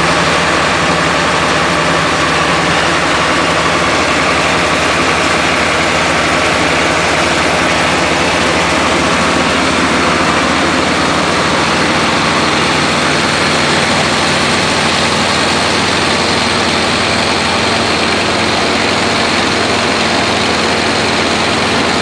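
Industrial vacuum truck's engine and vacuum blower running steadily: a constant low engine drone under a dense, even hiss.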